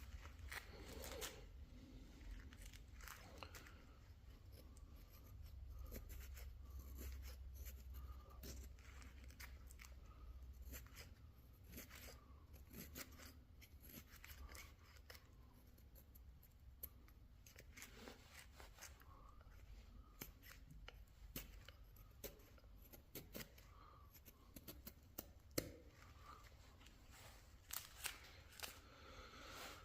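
Hand chisel paring and shaving a small wooden honey dipper: a quiet, irregular run of crisp cuts, scrapes and small clicks as the blade takes off wood.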